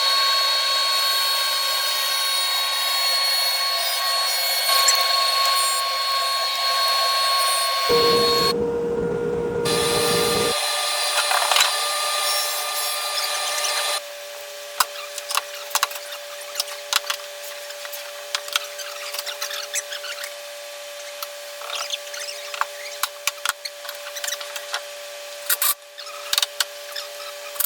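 Woodworking power tools running and cutting wood, in edited segments. A loud, high, steady whine over cutting noise gives way abruptly about halfway to a quieter steady hum with many sharp clicks and taps.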